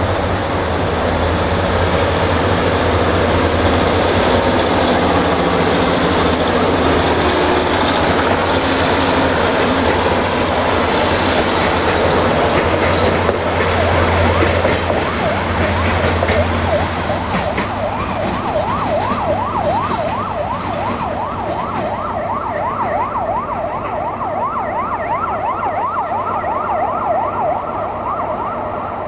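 Diesel-hydraulic DH2 'Wadloper' multiple unit running on the move, a steady low engine drone under rolling noise. The drone eases after about seventeen seconds, and a siren-like yelp, rising and falling several times a second, carries on from there to the end.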